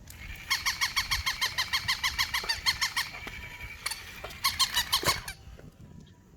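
A toy Shiba inu giving rapid high squeaks, about eight a second, in a long run and then a second shorter run.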